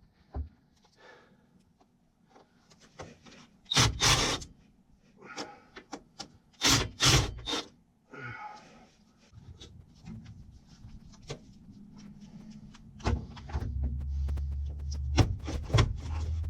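Scraping, rubbing and knocking as an air-conditioning unit's access panel is handled and worked at, with a low hum coming in near the end.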